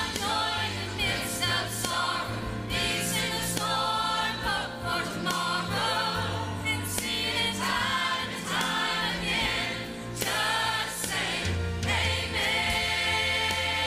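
Church choir singing a gospel song with a female lead voice, backed by a brass section of trumpets over steady low bass notes.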